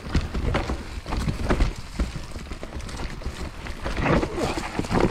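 Mountain bike riding over rough ground: a dense, irregular rattle and crunch of tyres and bike with many sharp knocks, over a continuous low rumble.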